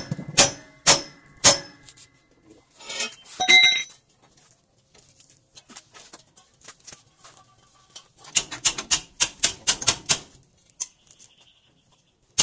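Steel hammer blows on a truck's steering knuckle arm, knocking the tie rod end's tapered ball joint loose: three sharp strikes about half a second apart, then a metal clatter with ringing. Later comes a quick run of lighter metallic clicks, about five a second.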